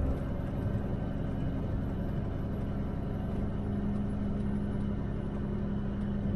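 Truck driving at steady road speed, heard inside the cab: a steady low engine and road rumble with a constant hum, swelling slightly about two-thirds of the way through.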